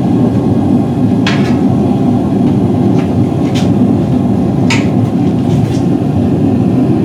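Hammer blows on steel during hot riveting: a few sharp, irregularly spaced strikes over a loud, steady, low roar of shop noise.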